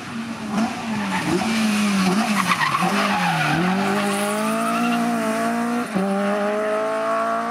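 A hatchback rally car's engine working hard through a corner, its note wavering and dipping with tyre squeal and skidding noise, then climbing steadily as the car accelerates away, with a brief break at a gear change about six seconds in.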